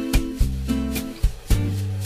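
Background music with a steady beat and a plucked guitar.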